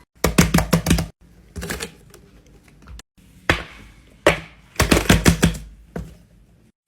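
Quick runs of sharp clicks and taps from fidget toys being handled, about five or six a second, in short bursts broken by sudden cuts.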